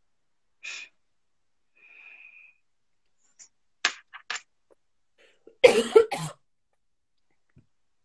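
A person's short, sharp breathy bursts: a few spread out, then a loud double burst about six seconds in.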